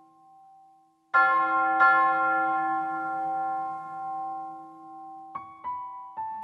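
Bell-toned keyboard chords: a soft held chord fades out, then a louder chord is struck about a second in, struck again shortly after, and rings down slowly. A few single high notes sound near the end.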